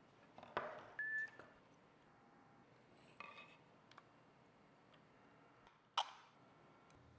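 Sparse clicks and knocks of hard plastic parts and a screwdriver being handled on a wooden workbench, with a brief metallic ping about a second in and a single sharp knock near the end.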